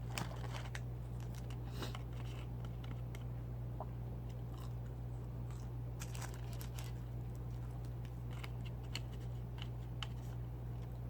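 A person biting and chewing crunchy fried fast food close to the microphone: irregular crunches and mouth clicks, over a steady low hum.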